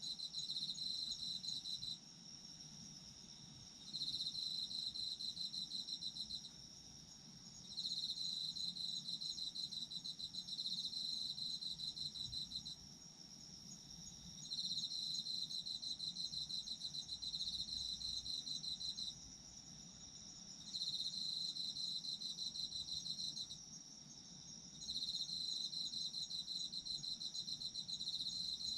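Autumn insects calling, crickets by the sound of it: one steady high trill runs on unbroken, while a second, lower, rapidly pulsing trill comes in bouts of a few seconds with short pauses between.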